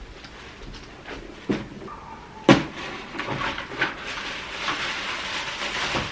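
A cardboard parcel being cut open with scissors and unpacked: a couple of sharp knocks, the loudest about two and a half seconds in, then steady crinkling and rustling of plastic packaging from about three seconds on.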